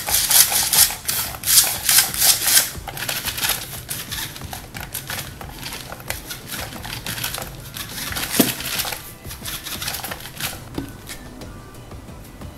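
Small DC drive motors and plastic gears of a homemade remote-control car whirring and rattling in quick bursts as it is driven from the transmitter, loudest in the first few seconds. The drive is weak on this motor, too weak to move the car well.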